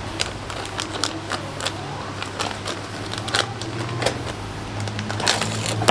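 Clear plastic packaging bags crinkling and rustling as they are handled, in a string of small sharp crackles.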